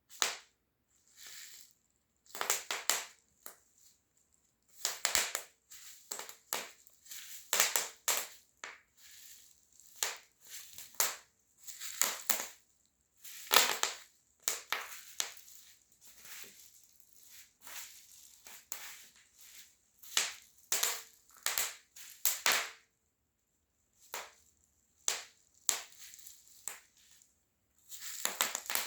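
Bubble wrap being popped under high-heeled shoes: irregular clusters of sharp pops and crackles as the bubbles burst under each step, with short pauses between them.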